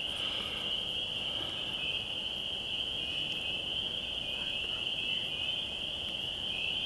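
A steady high-pitched whine over a faint background hiss.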